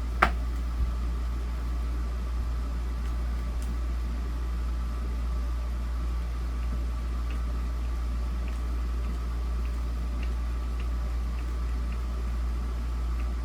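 Steady low mechanical hum, with one sharp click just after the start and a few faint small ticks later: a screwdriver and plastic fan parts being handled while screws are fitted.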